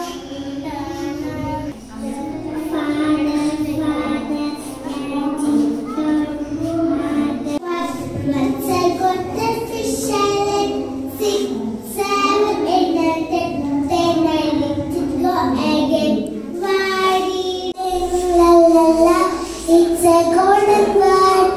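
Young girls singing solo songs without instruments, one child after another, with held, sliding notes; the singer's voice changes partway through as different children take their turn.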